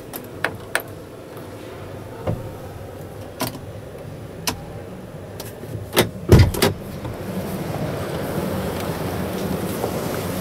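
Scattered sharp clicks of a truck cab's dashboard controls being pressed and handled, with a heavier low double knock about six seconds in, over a steady background din.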